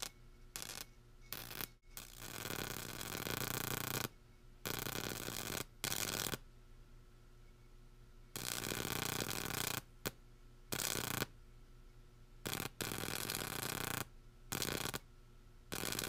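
High-voltage arc from a microwave oven transformer, drawn out with a wire on a stick, sounding in harsh noisy bursts of half a second to two seconds. It cuts off suddenly and restrikes about eight times as the arc breaks and is started again.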